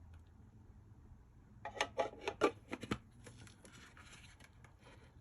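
Small watch boxes being handled: a quick cluster of sharp clicks and knocks about two seconds in, followed by soft rubbing and rustling.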